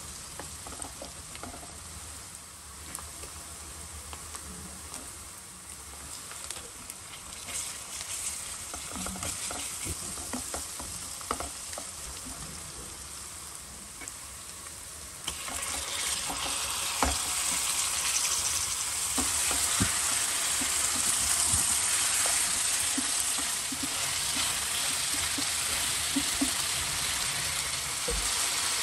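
Onions, green chillies and cashews sizzling in hot oil in a nonstick kadai, with the clicks and scrapes of a wooden spatula stirring against the pan. About halfway through the sizzling jumps louder and brighter as raw chicken pieces go into the hot oil.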